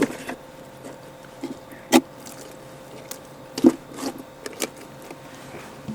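A few scattered knocks and clicks, the sharpest about two seconds in and another a little past halfway, over a faint steady hum.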